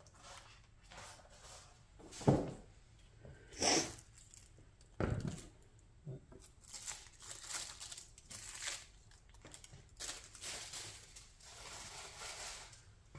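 Unboxing handling noise: packaging crinkling and rustling, with three sharp knocks in the first half and a longer stretch of rustling after that.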